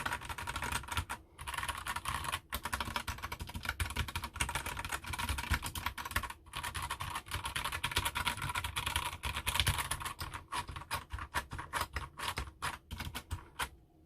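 Typing on a GK64 mechanical keyboard fitted with Gateron Red linear switches and XDA keycaps: a fast, continuous run of keystrokes that thins out to separate strokes in the last few seconds.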